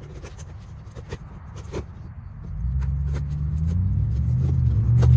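Cardboard box being handled and opened, with scattered light clicks and scrapes. About halfway through, a road vehicle's engine builds in, rising in pitch as it accelerates, and becomes the loudest sound.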